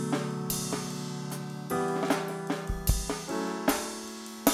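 Background music: held chords with drum hits landing every second or so, and a deep bass hit about three seconds in.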